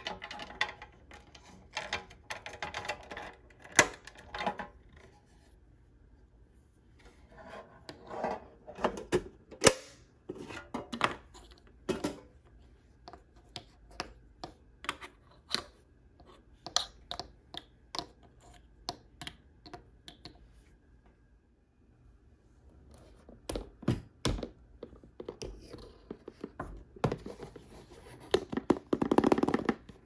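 Plastic toys and packaging being handled in an unboxing: irregular runs of taps, clicks and knocks, with two sharper knocks about 4 and 10 seconds in and quieter pauses around 6 and 21 seconds.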